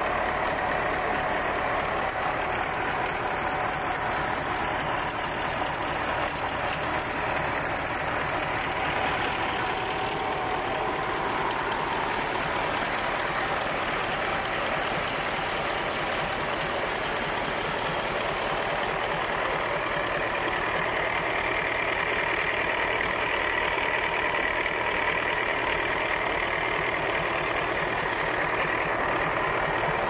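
Freshly rebuilt Caterpillar 3408 V8 diesel engine running steadily on its first run after the rebuild, a dense, even diesel clatter.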